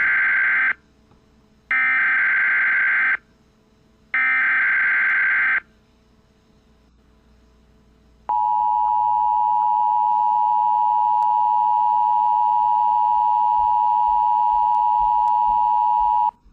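Emergency Alert System SAME header: three short bursts of digital data tones, the first already under way, with gaps of about a second between them. After a pause, the two-tone EAS attention signal comes in as a steady tone held for about eight seconds and cut off sharply.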